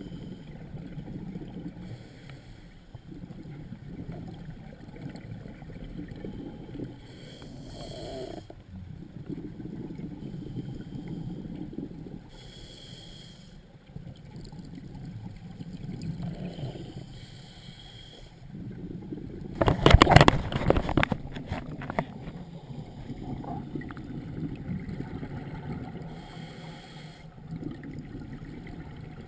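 Scuba diver breathing through a regulator underwater: hissing breaths and bubbling exhalations every few seconds, with one much louder rush about twenty seconds in.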